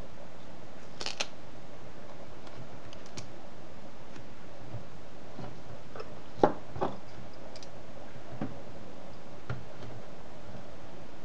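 Light clicks, taps and crackles of a laptop LCD panel and its tape and plastic cover being handled, with a sharper knock about six and a half seconds in and another just after, over a steady hiss.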